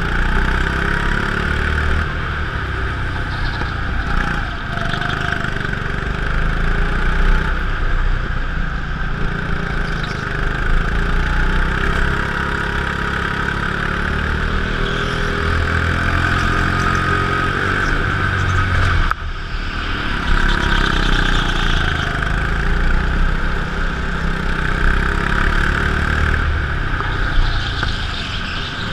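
Go-kart engine running continuously as the kart laps the track, heard from on board, changing with the throttle. It dips sharply for a moment just past halfway, then picks back up.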